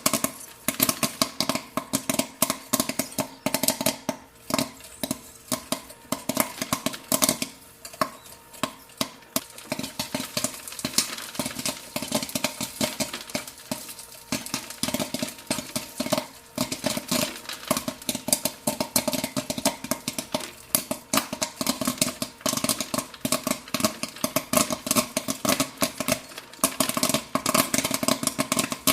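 Popcorn kernels popping in quick, irregular bursts of sharp pops, busiest at the start and again near the end and thinning out in the middle, over a steady machine-like hum.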